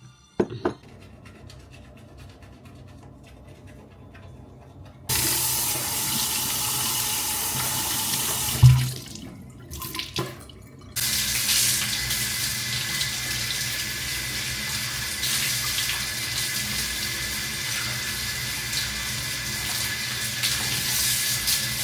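Water tap running into a sink: turned on about five seconds in, cut off after a loud low thump, then turned on again a couple of seconds later and left running steadily. A few short knocks near the start and in the gap.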